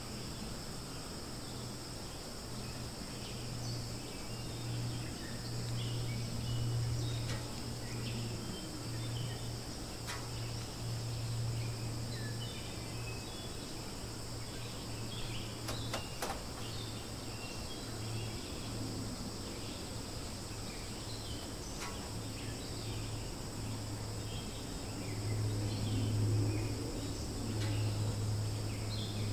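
Steady high-pitched drone of insects, over a steady low hum that swells near the end, with scattered short faint chirps.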